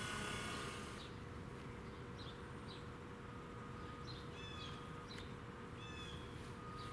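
Faint bird chirps, a handful of short sweeping calls, over a steady low hum. A steady whine of several tones fades out about a second in.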